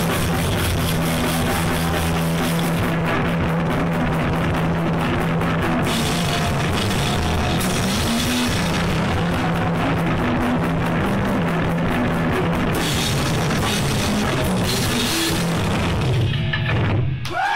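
A live heavy rock band plays loud: a drum kit with fast, even cymbal and drum hits over held bass and guitar notes. The music cuts off sharply shortly before the end, as the song finishes.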